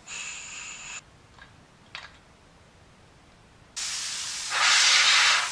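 Compressed air from a Makita air compressor hissing out through the hose fitting and airbrush. A short whistling hiss of about a second comes first, then two faint clicks, then a longer hiss from a little before the four-second mark that grows louder near the end.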